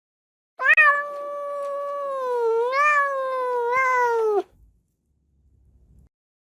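A cat giving one long drawn-out meow of nearly four seconds, loud at its onset, wavering and rising in pitch near the middle, then dropping off at the end.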